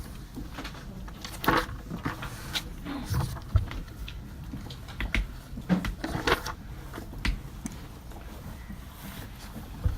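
Library ambience while people study: a low steady hum with scattered light knocks, clicks and rustling at irregular moments, and a few dull thumps about three seconds in.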